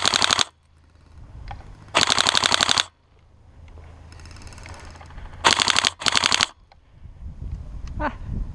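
Airsoft electric rifle firing short full-auto bursts, a rapid even rattle: one burst right at the start, one about two seconds in, and two more back to back past the middle.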